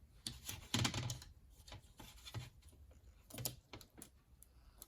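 Small plastic clicks and rubbing as Lego minifigure pieces are handled, with a handful of sharper clicks among quieter scraping.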